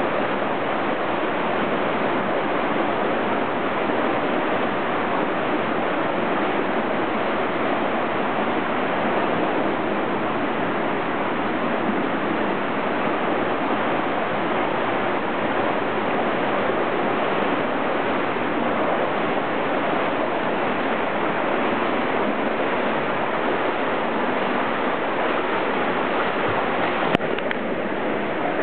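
Steady wash of splashing water from a swimmer doing backstroke in an indoor pool, even in level throughout, with one sharp click near the end.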